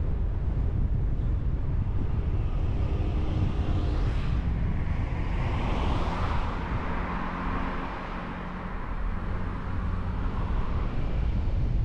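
Car driving along a road: a steady low rumble of road and wind noise, with a rushing hiss that swells about four seconds in and fades away again by about ten seconds.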